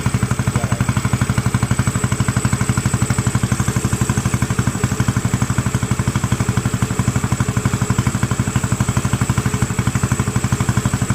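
Engine idling steadily with an even, rapid pulse of roughly ten beats a second.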